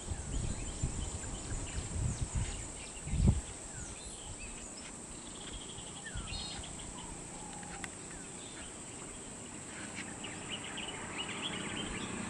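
Roadside jungle ambience: insects buzzing steadily at a high pitch, with birds chirping over it. Low rumbling thumps come in the first few seconds, the loudest about three seconds in. A faint low drone joins from about halfway.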